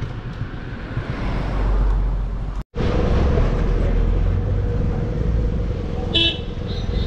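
Vehicle rumble in a Shimla traffic jam, engine and road noise heard from a car. One short car-horn toot comes about six seconds in. The sound drops out for an instant a little before three seconds in.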